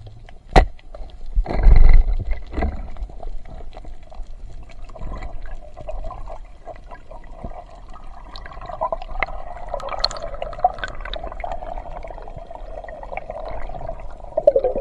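Underwater sound: a sharp click about half a second in as a speargun fires, then a loud rush of water, followed by gurgling and bubbling with scattered small clicks and knocks.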